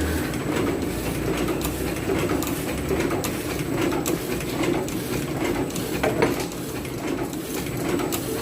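Repaired cutting machine running on a test run: a steady mechanical drone with continual clattering clicks.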